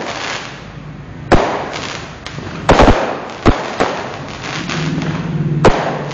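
Fireworks bursting overhead: a sharp bang about a second in, a quick cluster of bangs near the middle, and another loud bang near the end, with crackling in between.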